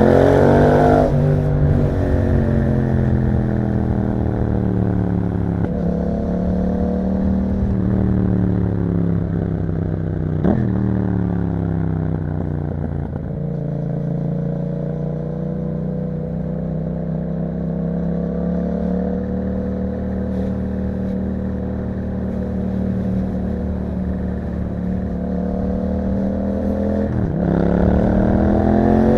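2021 Yamaha MT-07's parallel-twin engine through an Akrapovic exhaust, ridden on the road: engine pitch falls as it slows, rises and drops with gear changes about ten seconds in and near the end, and holds a steady pitch for a long stretch in between.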